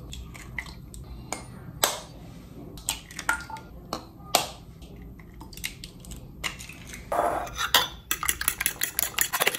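A few separate taps and clinks against a bowl, then three eggs being beaten in the bowl with fast, rhythmic clinking strokes from about seven seconds in.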